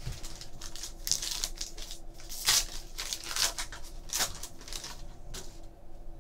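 Trading-card packs and cards being handled: a run of crinkling and rustling strokes, the loudest about two and a half seconds in.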